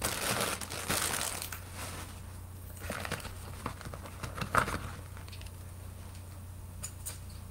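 Crinkling and rustling of jewelry and its packaging being handled, in a few short bursts, the longest in the first second or so, over a low steady hum.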